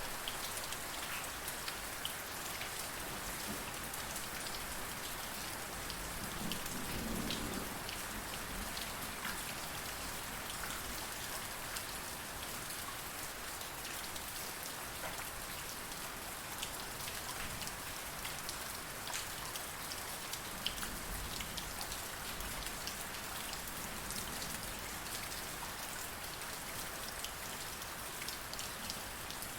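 Steady rain falling on hard surfaces, an even hiss with scattered individual drops ticking. A brief low swell rises and fades about seven seconds in.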